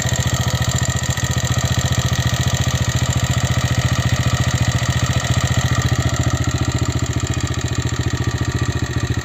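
TVS Raider 125's single-cylinder engine idling with a steady, fast, even pulse. The owner feels the engine itself is making more mechanical noise than it should, more than the exhaust.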